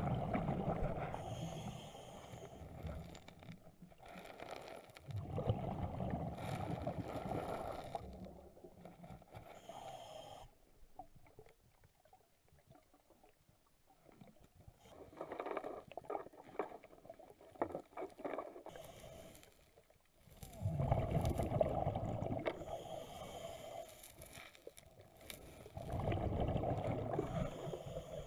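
A diver breathing underwater through a regulator: a rush of exhaled bubbles every five seconds or so, each lasting two to three seconds, with a quieter stretch in the middle.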